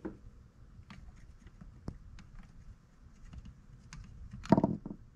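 Light, scattered clicks and taps of soldering-iron tips and a small circuit board being handled while an ultrasonic transducer is desoldered from a distance-sensor module, with one louder knock about four and a half seconds in.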